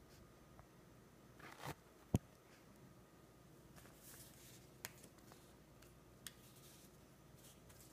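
Faint rustling and creasing of a sheet of paper being folded by hand, with a sharp tap about two seconds in and two light ticks later.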